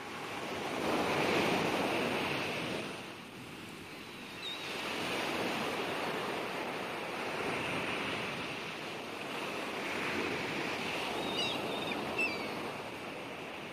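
Sea waves washing, the rush swelling and ebbing in slow surges every few seconds, with a few faint short high chirps near the end.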